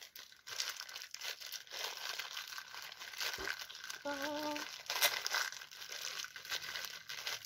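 Clear plastic bag crinkling as it is handled in the hands.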